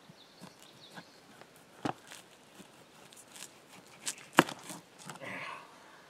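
A knife cutting through frozen cut bait on a plastic cooler lid: a series of sharp clicks and knocks, the loudest about four seconds in. A brief rustle comes near the end.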